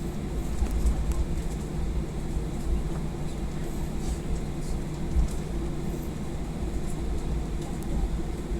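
Airliner cabin noise while taxiing on the ground: a steady low rumble with a constant hum, and faint light ticks here and there, loudest about four and five seconds in.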